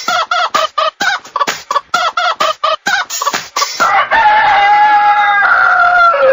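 Chicken clucks in a quick, even rhythm, about four or five a second, as in an edited chicken-sound soundtrack. About four seconds in, the clucking gives way to one long held call that falls in pitch at the very end.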